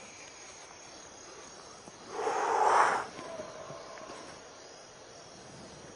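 Crickets chirring steadily. About two seconds in, a loud rushing burst of noise lasts about a second. It is followed by a faint, held, howl-like call that fades out after a second or so.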